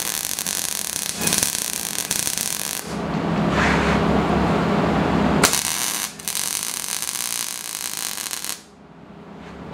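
MIG welder arcing as a quarter-inch steel rod handle is welded onto a coil-spring punch: two welding runs of about three seconds each, the second starting about halfway through, each a steady crackling hiss with a brief break.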